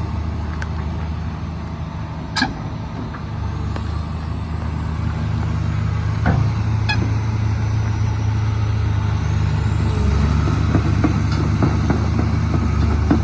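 Komatsu PC300LC-7 excavator's diesel engine running steadily, with a few sharp knocks in the first half. About ten seconds in it grows louder and a high whine rises in pitch.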